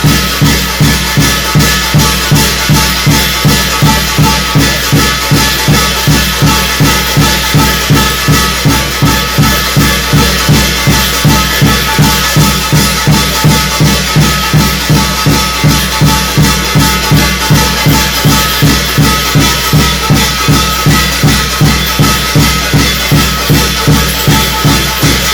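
Korean shamanic gut ritual percussion: a drum beaten in a steady, fast rhythm of about three strokes a second, under a continuous shimmering ring of cymbals.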